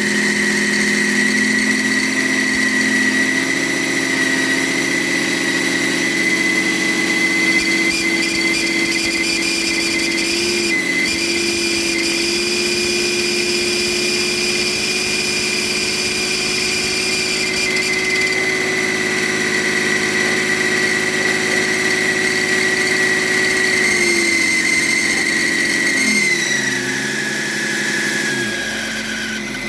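BMW E38's M57 straight-six turbo-diesel running with a steady high whistle from its rebuilt turbocharger. Near the end the engine speed drops and the whistle falls in pitch with it. The owner reports that this howl stops when the variable-geometry control valve is unplugged.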